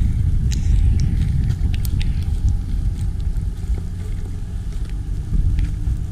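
Ram 1500 Rebel's 5.7-litre Hemi V8 running at low speed as the truck crawls through a deep sandy rut: a steady low rumble, with scattered sharp clicks over it.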